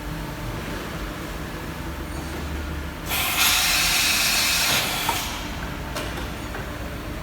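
OKK PCV-55 CNC milling machine running with a steady low hum, then a loud burst of hissing for about two seconds, about three seconds in, cut off with a click and followed by another click, like a compressed-air blast during the machine's cycle.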